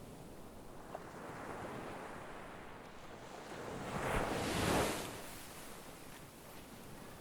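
Sea waves breaking on a shore: a steady wash of surf, with one wave building to a louder crash about four seconds in and then fading back.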